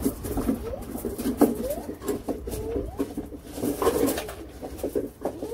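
Paper towel rubbed over the metal gearbox casing round the plug hole, giving a run of short rising squeaks mixed with rustling, a few times a second.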